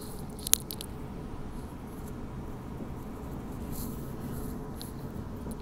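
Steady low rumble of a commuter train running along the track, heard from inside the carriage, with a sharp click about half a second in.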